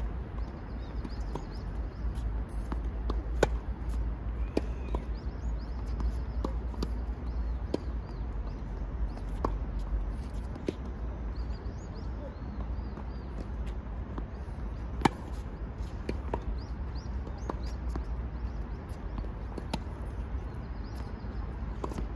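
Tennis ball struck by rackets in a baseline forehand rally: sharp hits at irregular intervals of a second or more, some loud and close, others faint from the far end of the court. Birds chirp throughout over a steady low rumble.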